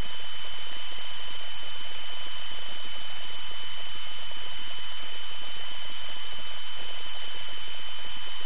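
Steady hiss of a Piper Cherokee's cabin noise heard through the intercom headset, with a constant high-pitched whine.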